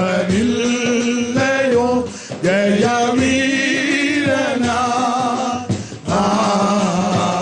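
Congregation singing a Malayalam Christian hymn together, men's voices prominent, in long held notes that waver in pitch.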